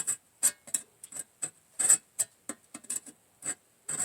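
Knife tip scraping a marking line into sheet metal, a dozen or so short scratching strokes at an uneven pace of about three a second.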